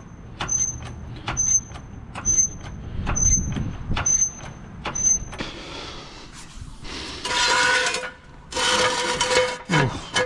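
Floor jack being pumped, about one stroke a second, each stroke with a click and a short high squeak. About five seconds in this gives way to a hiss and two longer metal scrapes with a ringing squeal as the steel jack stands are set under the car.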